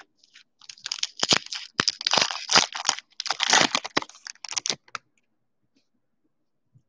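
Foil wrapper of a Topps Allen & Ginter Chrome baseball card pack being torn open and crinkled as the cards are pulled out: a crackling, rustling noise with sharp crackles for about four seconds, stopping about five seconds in.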